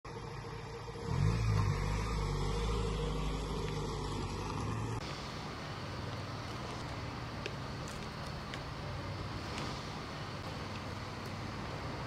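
Ford Transit Custom van engine running, louder from about a second in. About halfway through the sound changes abruptly to a steady even hiss with faint ticks.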